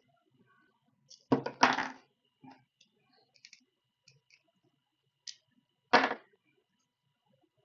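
Small hard objects, such as tools and parts, being knocked and set down on a hard surface: a few short sharp knocks and clatters, loudest as a double knock about a second and a half in and a single one about six seconds in.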